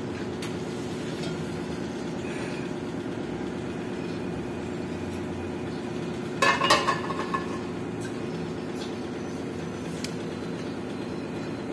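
A metal frying pan clattering down onto the grate of a gas stove burner about six and a half seconds in, the loudest sound. Over a steady low hum, with a few faint single clicks.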